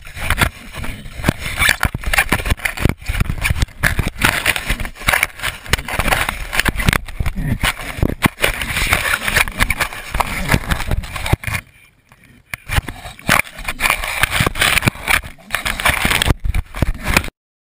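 A pig nosing and mouthing a dropped camera: a dense, irregular run of knocks, scrapes and crunches against the camera body. There is a brief lull about twelve seconds in.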